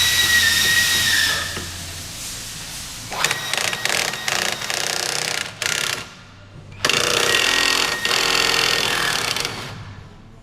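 A power tool with a hammering action, run in three bursts of a few seconds each: a steady whine over a fast rattle.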